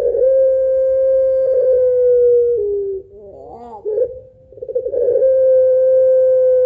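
Barbary dove of the long-voiced pelung strain (puter pelung) giving its long laughing coo twice. Each call starts with a quick rolling trill and goes into a long held note that falls slightly. The first note steps down in pitch about two and a half seconds in and ends at about three seconds; the second call starts about a second later.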